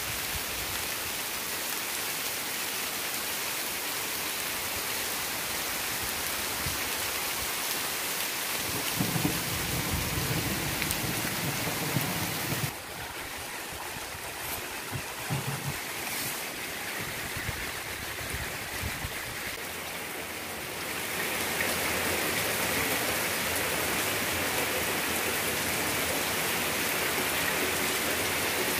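Steady rain falling, an even hiss with no voices. A low rumble sits under it for a few seconds before the middle; the rain then drops suddenly quieter, and comes back heavier and brighter about three-quarters of the way through.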